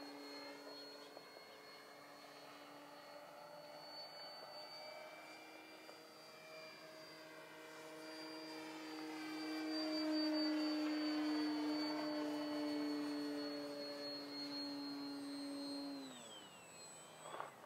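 Electric motor and propeller of an XFly GlaStar RC plane on a 3s battery in flight: a steady whine that grows louder about ten seconds in and bends in pitch as the plane passes. Near the end the motor winds down, the whine falling sharply in pitch.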